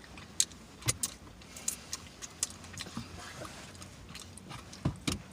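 Close-miked chewing and open-mouth smacking of fast food: irregular wet mouth clicks and smacks, with two heavier thumps near the end.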